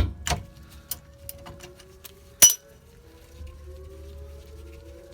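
Irregular metallic clinks and clicks of a socket wrench on the rear wheel hub bolts, with one louder metal clank about two and a half seconds in.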